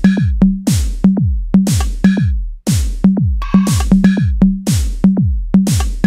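Electronic dance track played on a Korg Electribe: a drum-machine beat of kick drums that fall in pitch, about two a second, with bright crashing hits over a steady low bass note and short synth tones. The beat cuts out briefly near the middle.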